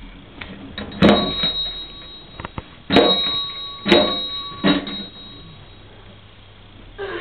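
Bell on a toy fire engine rung by hand four times, each a sharp clang followed by a high ringing tone that fades over about a second.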